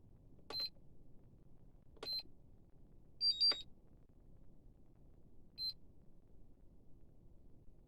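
Short single electronic key beeps from a hobby LiPo battery charger, spaced a second or more apart, with a louder quick two-tone double beep in between.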